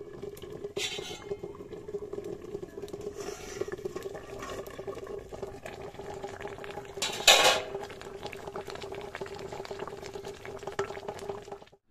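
Hilsa curry in mustard sauce bubbling and sputtering in a cooking pan as it is stirred, over a steady hum. There is a brief loud noise about seven seconds in.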